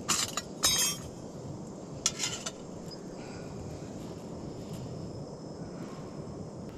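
Steady wind noise, with three short bursts of rattling in the first two and a half seconds.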